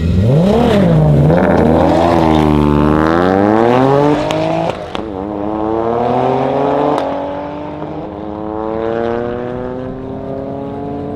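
Two cars launching hard from a standing start and accelerating away: a tuned 400 hp Toyota GR Yaris, its turbocharged three-cylinder breathing through a Milltek exhaust, alongside a Volkswagen Golf. Engine pitch climbs steeply through each gear, with sharp cracks and a drop in pitch at the upshifts about four and seven seconds in, and the sound fades as the cars pull away.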